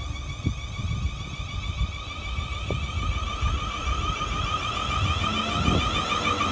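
Class 444 electric multiple unit running slowly into the platform, its traction motors giving a steady, slightly wavering high whine over the low rumble of the wheels on the rails, with a couple of brief knocks.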